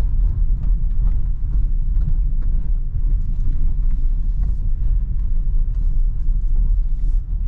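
Low steady rumble inside the cabin of a Kia Sorento hybrid SUV rolling slowly over a potholed unpaved surface, with scattered faint clicks and knocks.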